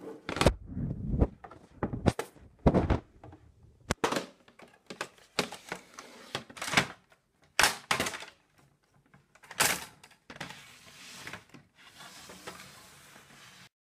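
Plastic toy carrying-case playset being unlatched and unfolded by hand: a string of hollow plastic knocks, clicks and clatters as its halves and parts swing open and are set down on the table. The sound stops abruptly near the end.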